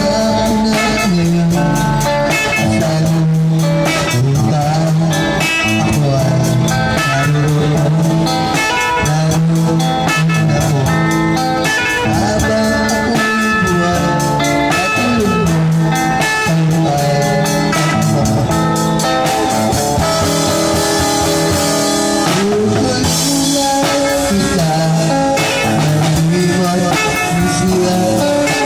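Live drum kit and electric guitar playing: a steady beat of drum and cymbal strikes under a moving guitar and bass line, amplified through a portable speaker.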